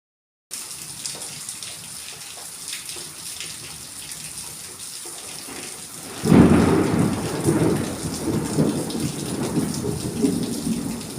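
Steady rain falling with fine pattering drops, then about six seconds in a loud thunderclap breaks out and rolls on as a long, deep rumble over the rain.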